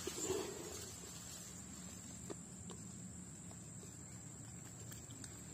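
Faint, steady high-pitched drone of insects, with a soft splash and rustle of a hand working in muddy ditch water in the first half second and a few faint ticks.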